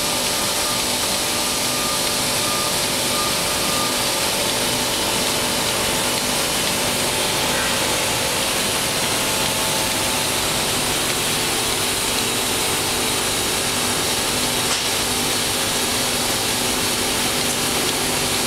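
Electrostatic powder-coating gun spraying polyester top-coat powder: a steady rushing hiss of air and powder with a steady machine hum underneath, unchanging throughout.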